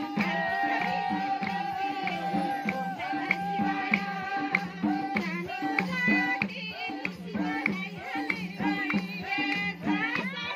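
Nepali folk bhajan performed live. A woman sings a bending, ornamented melody over a harmonium, while madal barrel drums keep a steady, regular beat.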